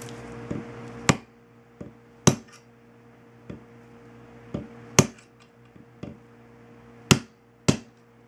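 A steel punch pressed into a Mosin-Nagant bolt head to push out the extractor, clicking against the metal in a series of irregular sharp clicks a second or so apart.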